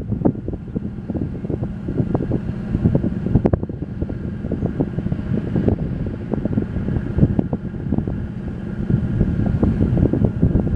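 Wind buffeting the camera microphone: a loud, steady low rumble broken by irregular crackling gusts.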